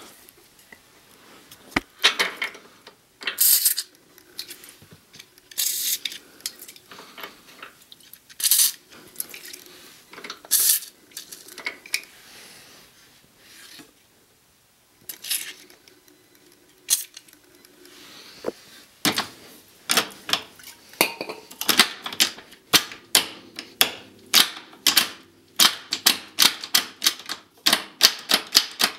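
Hands-on work on an ATV: short hisses from a spray can of penetrating oil, and scattered metal clicks and knocks. From about two-thirds of the way through comes a steady run of quick, sharp clicks, about two or three a second.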